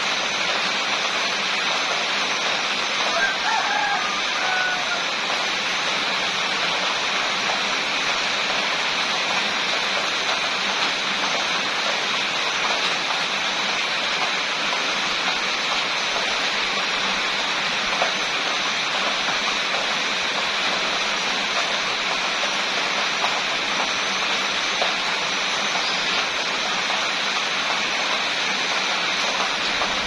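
Steady rain falling, an even hiss that does not change. A brief faint pitched call is heard about three seconds in.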